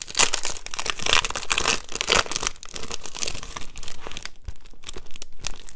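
Clear plastic wrapping and plastic card-sleeve inserts crinkling as they are handled and unfolded, in quick irregular crackles, busiest in the first couple of seconds and sparser after.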